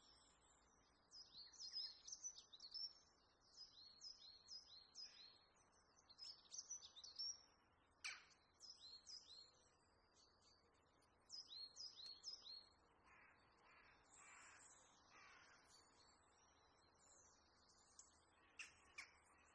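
Faint chirping of small birds: runs of quick, high, falling chirps, several a second. There is a sharp click about eight seconds in, and a few soft scrapes of a knife spreading margarine on bread a little later.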